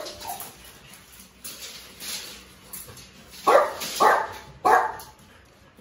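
A small dog barking three times in quick succession, about half a second apart, in the second half.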